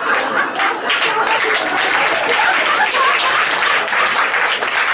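Audience applauding, many hands clapping at once, with some laughter mixed in.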